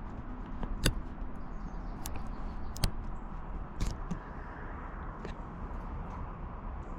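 Steady outdoor background noise with a few short, sharp clicks or knocks scattered through it.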